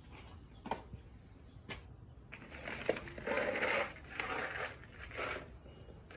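Wrapping and small objects being handled and rummaged through by hand. A few light knocks come in the first three seconds, then bursts of crinkling and crumpling start about three seconds in.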